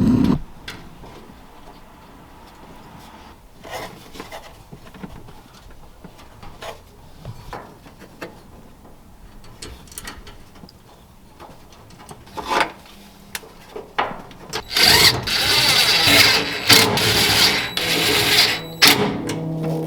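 Scattered clinks of tools and parts, then near the end a power tool running in a few short, loud runs, tightening down the bolts that hold the fuel pump assembly in the tank.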